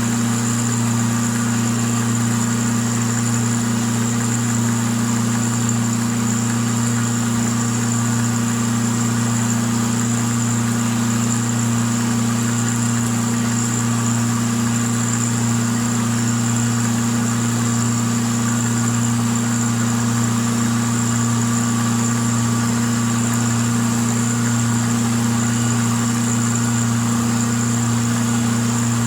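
A milling machine runs steadily while it cuts a slot in steel bar stock for a T-nut, with a constant motor hum and a high whine. The level holds even, with no stops or changes.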